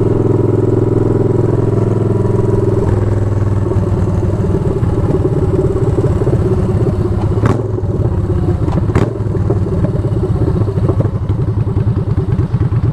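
Yamaha Bolt's air-cooled 942 cc V-twin running at a steady cruise, then settling about three seconds in into a low, lumpy pulsing beat as the bike slows in traffic. Two sharp knocks sound near the middle.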